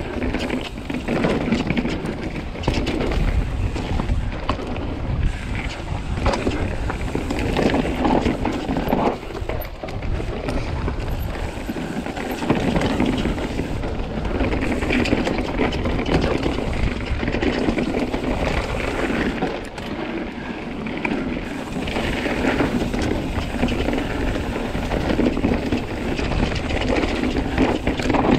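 Commencal Meta mountain bike riding fast down a dusty dirt trail: tyres rolling over dirt and roots, with the chain and frame rattling in many small knocks and wind buffeting the microphone.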